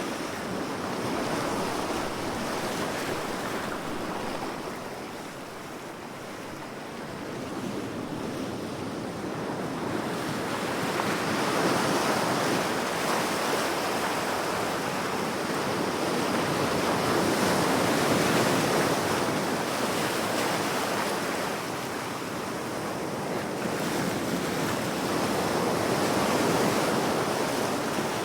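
Ocean waves breaking and washing on the shore, the surf rising and falling in slow swells every several seconds.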